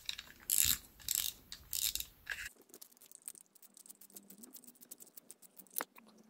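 Ratcheting clicks from a cheap plastic spinning reel as its front drag knob is unscrewed. For about the first two and a half seconds there is a short burst of clicks with each twist, about every half second; after that come fainter rapid ticks as the knob comes free.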